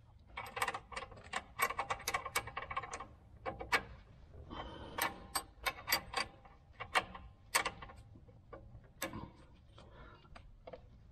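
Metal wrenches clicking and clinking on a brake line flare nut and brake hose fitting as the fitting is tightened. Sharp ticks come in quick runs for about the first eight seconds, then only a few.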